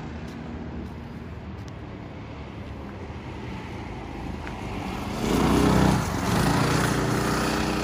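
Racing go-kart engines running on the track, a steady engine hum that swells sharply about five seconds in as karts pass close by, then stays loud.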